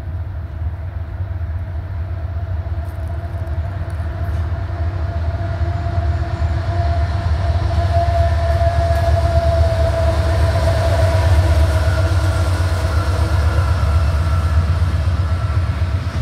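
CSX diesel freight locomotives passing close by with a deep, steady engine rumble that grows louder and is loudest about ten seconds in, followed by double-stack intermodal cars rolling past on the rails.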